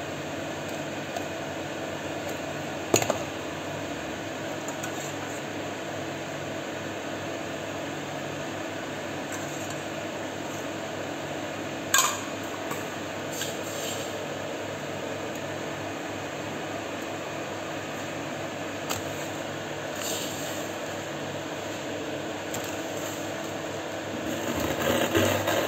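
Steady whirr of an electric fan running, with a few clinks of steel kitchen utensils being handled, the loudest a short ringing metal clink about twelve seconds in, and busier clattering near the end.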